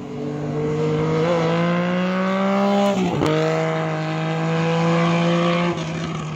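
Vehicle engine accelerating hard, its pitch rising steadily, breaking and dipping at a gear change about three seconds in, then climbing again until the throttle comes off near the end.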